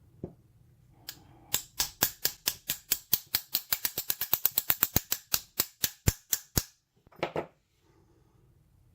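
A rapid series of about two dozen sharp taps, speeding up to about six a second and then slowing, followed by a brief scraping rattle: a Yale lock cylinder being knocked against a hard surface to free a stuck pin in chamber 1, which stays stuck.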